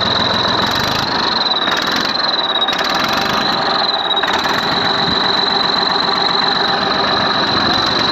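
Massey Ferguson 1035 tractor's three-cylinder diesel engine running steadily, with a constant high-pitched whistle over it like a turbocharger's, though the engine has no turbo. The whistle's pitch wavers slightly a few times in the first half.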